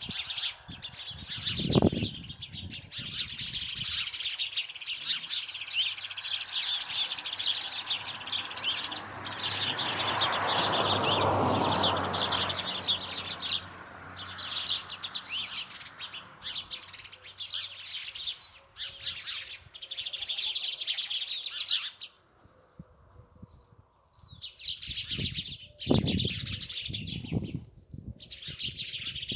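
A flock of sparrows chirping and chattering busily, pausing briefly a few times and falling quiet for a couple of seconds about three quarters of the way through. A broad rushing noise swells up and fades away in the middle.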